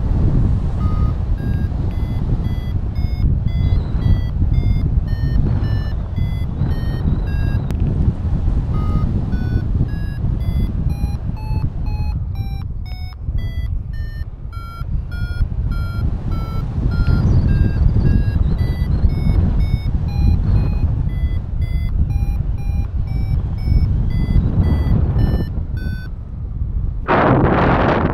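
Paragliding variometer (XCtracer Mini IV) beeping a rapid series of short tones whose pitch steps up and down, signalling climb in a thermal: the tones sink lower about halfway through, then climb higher again. Heavy wind noise on the microphone runs underneath, and near the end the beeping stops as a loud gust of wind noise hits.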